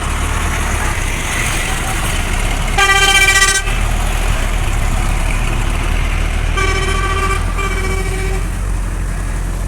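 A vehicle horn sounds: one blast about three seconds in, then two shorter toots in quick succession around seven seconds, over the steady low rumble of a running engine.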